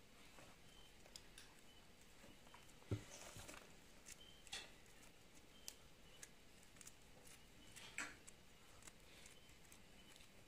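Porcupine quills being plucked out by hand and dropping into a plastic basin: faint scattered clicks and rustles, with louder knocks about 3, 4.5 and 8 seconds in.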